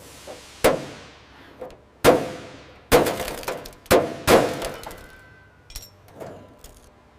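A series of about five sharp crashing impacts, each with a long ringing tail that fades over about a second; the two loudest come about two and three seconds in.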